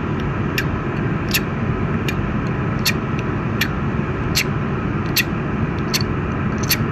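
Steady rumbling background noise from a cartoon soundtrack, with a short, crisp tick repeating about every 0.8 seconds.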